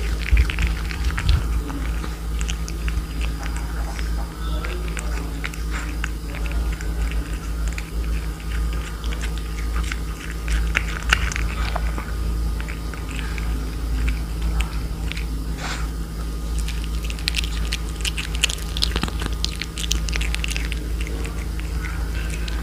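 A cat chewing and biting into cooked fish: a run of small wet clicks and smacks, busiest near the end.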